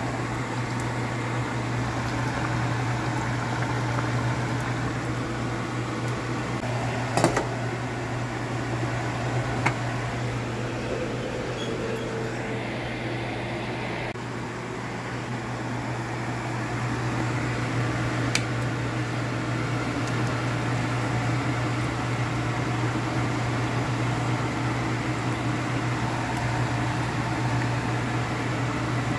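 Steady low hum of a running kitchen appliance, with a pot simmering on the stove and a few sharp clicks, the loudest about seven seconds in.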